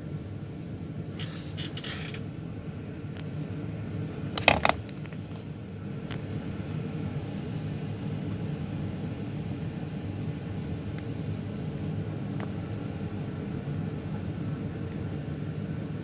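Steady low rumble of engines and street traffic far below, with one sharp click about four and a half seconds in.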